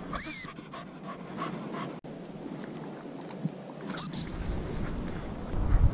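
English cocker spaniel panting close by, with a short shrill blast on a gundog whistle just after the start and two quick pips on it about four seconds in.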